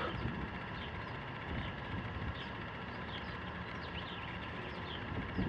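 Steady low background noise with faint, short high chirps repeating every half second or so.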